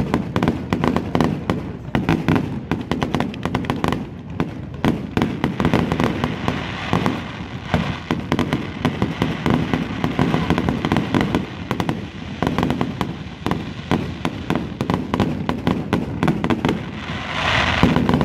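Fireworks display: aerial shells bursting in a rapid, continuous barrage of bangs and crackles, loudest near the end.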